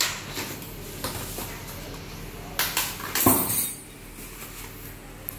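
Clinks and knocks of metal bicycle parts and tools being handled during assembly, with a louder knock a little over three seconds in.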